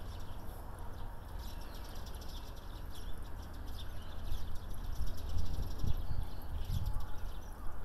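Small birds chirping rapidly in the background over a low, uneven rumble that swells louder about halfway through.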